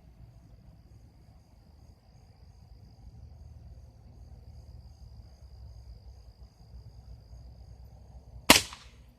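A single sharp crack from a .177 Ruger Air Hawk Elite II air rifle firing, about eight and a half seconds in. Before it there is only a steady high insect trill.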